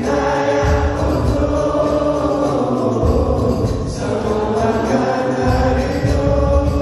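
Male vocalist singing an Islamic qasidah through a microphone and PA, holding long melismatic notes over musical accompaniment with a low beat that drops out briefly a few times.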